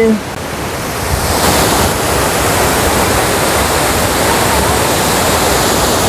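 Mountain stream rushing over rocks: a steady rush of water that swells a little about a second in.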